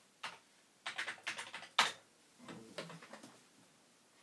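Typing on a Commodore Amiga 500 keyboard: irregular keystroke clicks in short runs, the loudest a single sharp keypress just under two seconds in.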